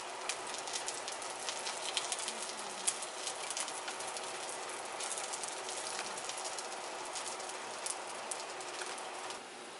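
A pot of doenjang-jjigae (Korean soybean-paste stew) boiling on the stove: a steady hiss with many small crackling pops from bubbles breaking at the surface. It drops quieter just before the end.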